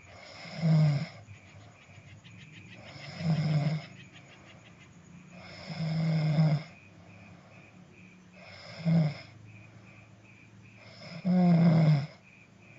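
A person snoring: five loud snores, one about every two and a half seconds, each a low buzz, with quiet breathing between.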